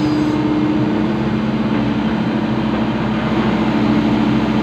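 Excavator's diesel engine running steadily, a constant hum with a couple of steady low tones.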